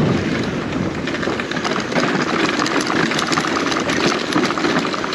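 Dirt bike engine running steadily as the bike is ridden over a rough, rocky dirt trail, with many small knocks and rattles from the bike on the stones.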